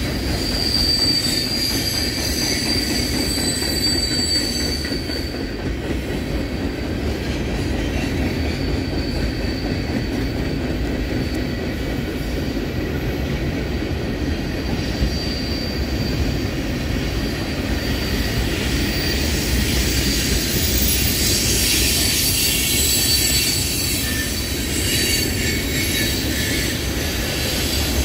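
CSX freight train's boxcars and tank cars rolling past: a steady low rumble of steel wheels on rail, with a thin, high wheel squeal that comes and goes.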